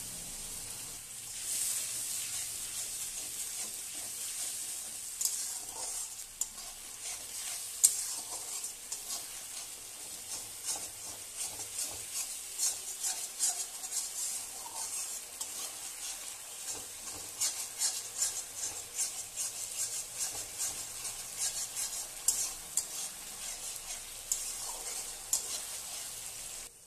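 A spice paste of ginger, cumin, chilli and turmeric sizzling in oil in a metal kadai, with a splash of water just added. A spatula stirs and scrapes it against the pan in many quick strokes; the masala is being fried down until the oil separates.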